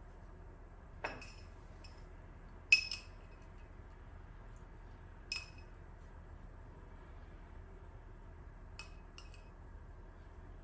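Glass and tableware clinking: about five short, sharp ringing knocks, the loudest a quick double clink about a quarter of the way in.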